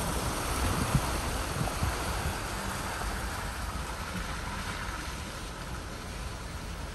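Jeep wading through deep floodwater: water sloshing and rushing against the vehicle over a low rumble, easing off slightly toward the end.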